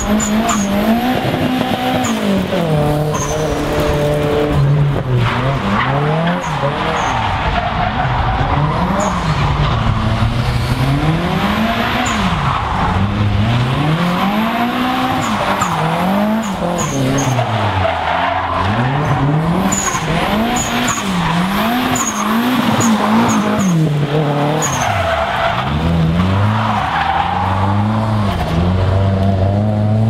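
Drift car engine revving up and down over and over, its pitch rising and falling every second or two, with continuous tyre squeal and skidding as the car slides.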